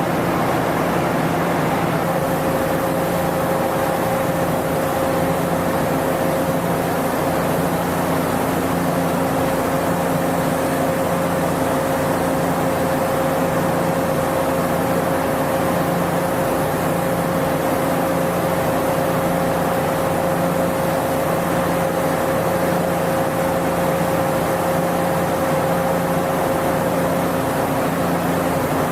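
Steady machinery drone: an even rushing noise over a low hum, joined about two seconds in by a thin, constant whine.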